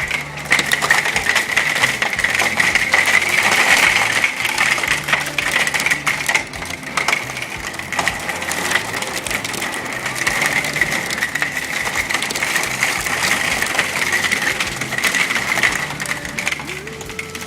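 Hailstones pelting down in a heavy hailstorm: a loud, dense, unbroken clatter of countless hard impacts, thinning slightly near the end.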